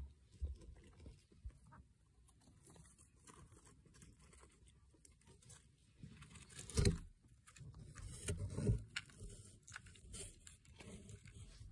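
Faint rustling and scratching of a hamster moving about in paper bedding and against plastic, in small scattered bits, with louder rustles about seven seconds in and again near nine.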